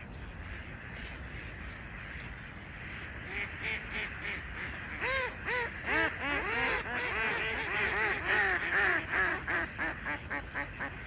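A flock of waterbirds calling: many short, arched calls overlapping, starting about three seconds in, growing dense and loud from about five seconds and thinning out near the end, over a steady low background rumble.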